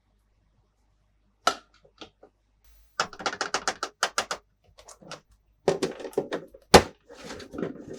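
Hard plastic toy pieces clicking and tapping as they are handled, with a rapid run of clicks about three seconds in and a sharp knock near the end, followed by rustling.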